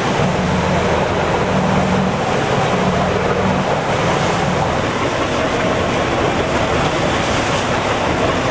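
A motorboat's engine runs with a low, steady hum under a constant rush of wind and sea water. The hum weakens about three and a half seconds in.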